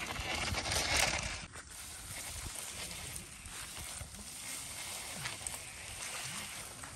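Dry grass and fallen leaves crackling and rustling as brush is pushed through, loudest about a second in.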